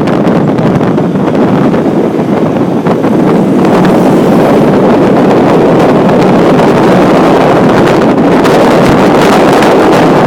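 Wind buffeting the microphone of a moving vehicle, with road and vehicle noise underneath; it grows louder about three and a half seconds in and then holds steady.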